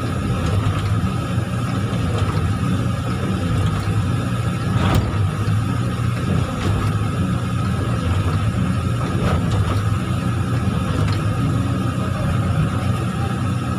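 Heavy diesel engine of an excavator running steadily with a low rumble, and a faint steady higher tone above it. There is a brief click about five seconds in.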